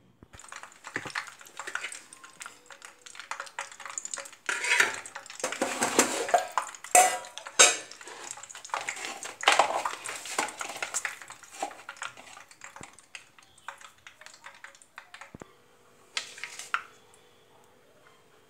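A steel spoon scraping and clinking against a steel plate while a semolina filling is mixed, with dishes knocked about, in an irregular run of scrapes and knocks that thins out about twelve seconds in. A faint steady hum starts near the end.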